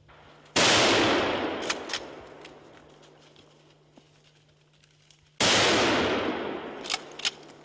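Two rifle shots about five seconds apart, each sudden and loud with a long echo fading over a second or more. A couple of short sharp clicks follow each shot.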